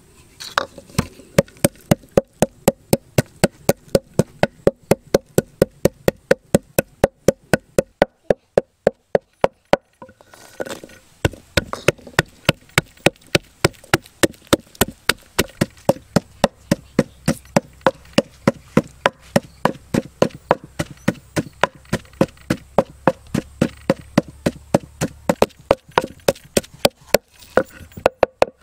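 Knife chopping on a wooden cutting board in a steady rhythm, about four strokes a second, with a short break around eight to eleven seconds in.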